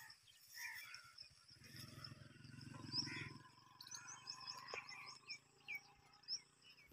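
Faint birds chirping in a quick run of short, high notes through the second half. A low buzzing hum lasts for about two seconds near the start.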